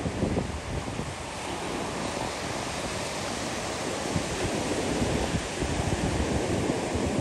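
Ocean surf breaking and washing up a sandy beach in a steady wash, with wind gusting on the microphone.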